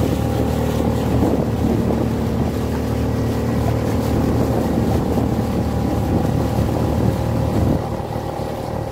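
Small tiller-steered outboard motor running steadily at cruising speed, pushing a skiff along a river, with wind buffeting the microphone.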